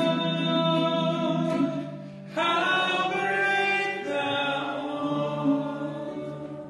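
Congregational hymn singing in long held notes. The sound breaks off briefly about two seconds in, then a closing phrase begins and slowly dies away near the end.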